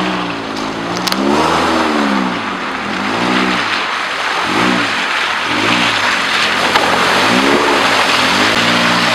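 Subaru Forester's flat-four engine revving up and down in repeated short surges as it drives through a rocky trail, with its tyres splashing through muddy puddles and churning over gravel.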